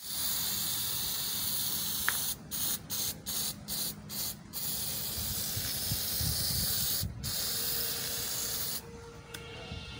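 Aerosol spray paint can hissing as paint is sprayed: long steady sprays, a run of five short quick bursts about two and a half to four and a half seconds in, a brief stop around seven seconds, and the spraying stops about a second before the end.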